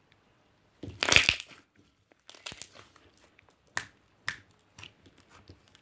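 Slime being squeezed and stretched by hand, clicking and crunching: one loud crackling burst about a second in, then scattered sharp clicks and crackles.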